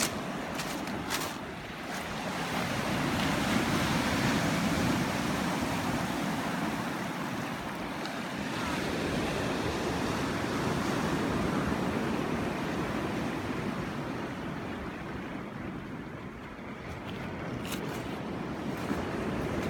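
Steady rush of water where a shallow gravel river runs into the sea, swelling and easing every few seconds, with some wind on the microphone and a few faint clicks near the start and end.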